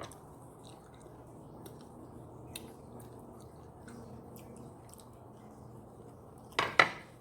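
A person chewing and eating, with faint mouth sounds and small clicks. Two short, louder sounds come close together near the end.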